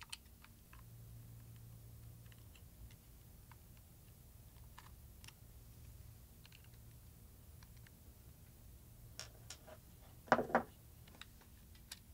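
Small screwdriver backing screws out of a laptop hard drive's metal caddy: faint, scattered ticks and clicks of tool and screws on metal, with a louder clack about ten seconds in.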